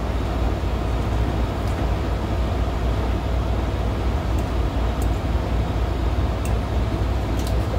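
Steady low machinery drone, with a few faint light clicks scattered through it.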